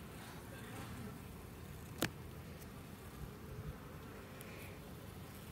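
Honeybees buzzing steadily around an open hive, with one sharp click about two seconds in.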